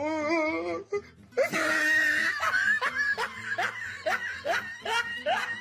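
A person laughing hard: a high, wavering voice in the first second, then a quick run of short rising laughs, about three a second.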